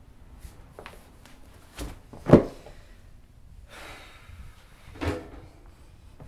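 Two knocks or thumps close together, the second the loudest, then a long breathy sigh and a short heavy exhale from a person.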